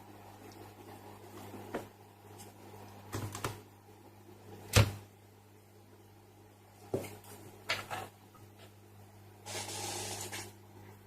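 Scattered clicks and knocks of hard objects being handled, the loudest about five seconds in, with a short hiss near the end, over a steady low electrical hum.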